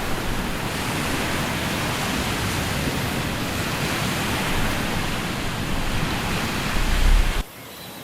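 Steady rush of surf and wind, with low wind rumble on the microphone, cutting off abruptly near the end.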